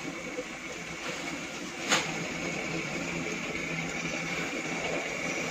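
A steady mechanical hum with a faint high whine running through it, and a single sharp click about two seconds in.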